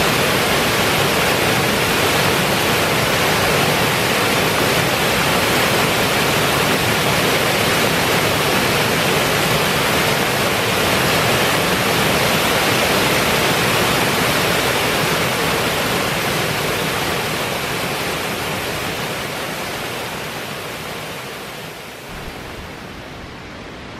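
River water rushing over a small stepped stone weir: a steady, loud rush of falling water that fades down gradually over the last several seconds.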